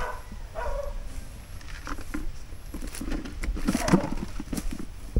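Footsteps crunching through dry leaves and straw on a dirt path, thickest about three to four seconds in, with a short falling call just after the start.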